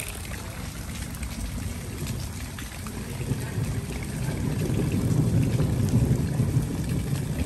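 Steady hiss of rain and splashing water, with a low rumble that swells about three seconds in and becomes the loudest sound.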